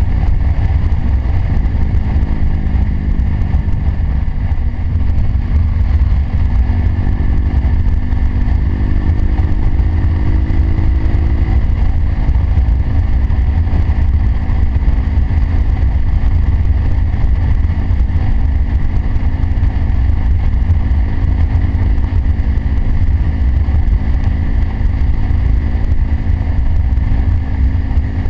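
Motorcycle engine running at road speed under heavy wind rumble on the bike-mounted microphone. The engine note shifts in pitch over roughly the first twelve seconds, then holds steady.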